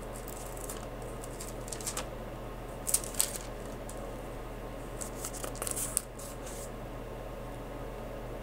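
Thin Bible pages being turned by hand, a handful of short crisp paper rustles, over a steady low hum.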